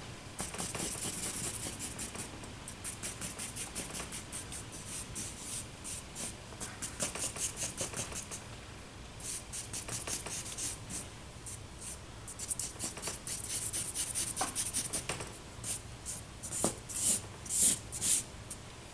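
Stick of charcoal scratching on drawing paper in quick, repeated hatching strokes as shading is laid in. Several short strokes a second, with a few louder ones near the end.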